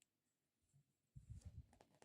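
Faint close-miked handling of a soft object: a single sharp click, then about a second in a run of soft low thumps.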